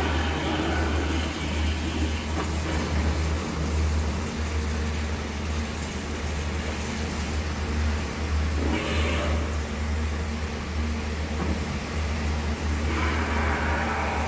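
Screeching monster calls from a cartoon soundtrack over a steady low rumble. There is one at the start, one about nine seconds in, and a longer one near the end.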